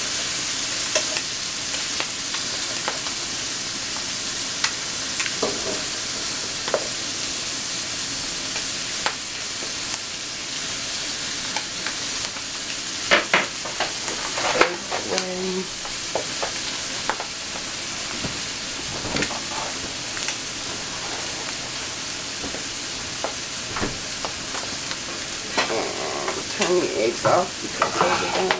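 Sausage patties and eggs sizzling steadily in frying pans, with short scrapes and clinks of a fork and spatula against the pans, in a cluster about halfway through and again near the end.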